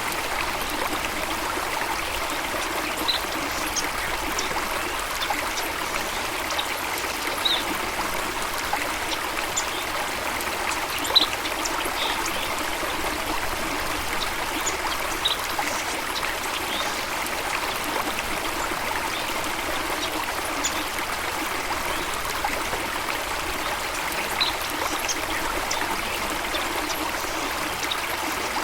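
Steady rush of a stream or small waterfall, even and unbroken, with brief high-pitched notes now and then.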